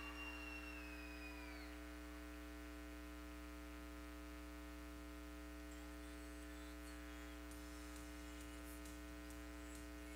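Faint, steady electrical mains hum with many overtones, left bare once the music has stopped. A faint high held tone rises and falls slightly and fades out in the first two seconds.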